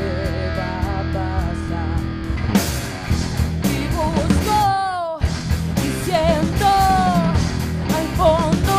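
Live rock band: a woman singing over electric bass, guitar and drums. Light cymbal ticks under the voice at first, then the full band comes in louder about two and a half seconds in, with a brief dead stop just past the middle.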